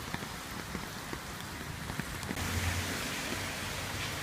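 Steady hiss of heavy rain and rushing floodwater from an overflowing stream; about two seconds in the sound shifts and a low rumble joins.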